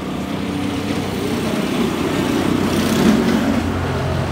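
A motor vehicle's engine running steadily, with a low, even hum that swells a little about two to three seconds in.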